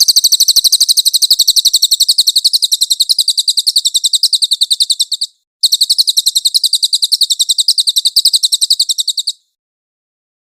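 Cililin songbird singing a rapid, high-pitched trill of evenly repeated notes in two long phrases. There is a brief break a little after five seconds, and the song stops a second before the end.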